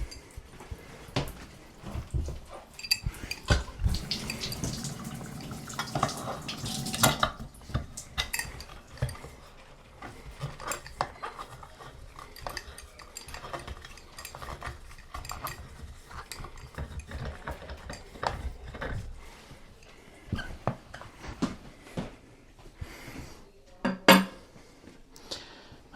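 Irregular metallic clinks, clicks and scrapes of a shower head being unscrewed and taken apart by hand, with a sharper knock near the end.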